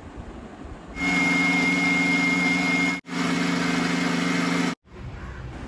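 Electric mixer grinder running at speed, its motor grinding red spinach, oats and eggs with water into dosa batter in a steel jar. A steady whine starts about a second in, breaks off briefly about three seconds in, and stops near the end.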